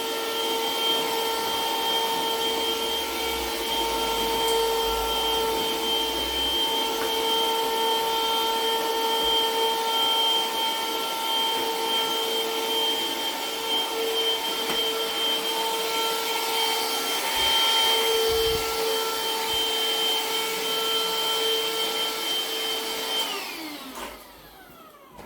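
Black+Decker BCHV001D1E 2-in-1 vacuum, in upright mode with the floor brush, running with a steady motor whine. Near the end it is switched off and the motor winds down, its pitch falling.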